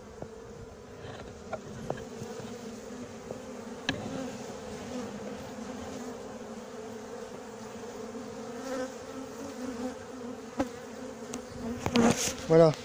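Honeybee colony buzzing in a steady hum around the open hive; the bees are calm, not attacking. A few light clicks of handling, and a cluster of louder knocks near the end.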